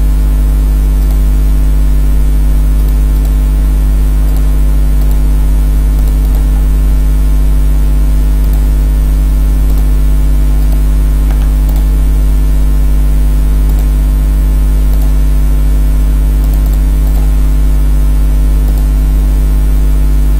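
Steady electrical mains hum with its overtones, loud and unchanging, picked up by the recording setup.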